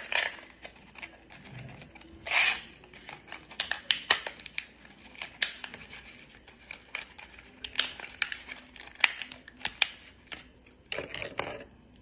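Plastic and paper blister pack of a prefilled syringe being peeled open and handled: irregular crinkles and crackles, with a longer tearing rustle about two seconds in and a last cluster of crackles near the end.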